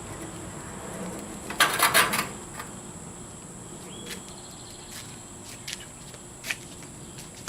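Steady high-pitched insect chorus, with a quick cluster of loud knocks and clatters about two seconds in and a few lighter clicks after.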